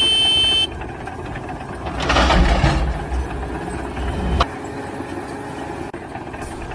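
A steady high electronic beep in the first half-second, then a motor vehicle engine running, with a noisy rush about two seconds in and a sharp click about four and a half seconds in, after which the engine sound drops.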